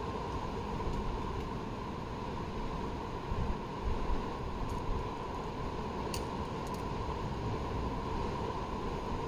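Steady wind noise on the microphone, a low rumbling hiss, with one faint sharp click about six seconds in.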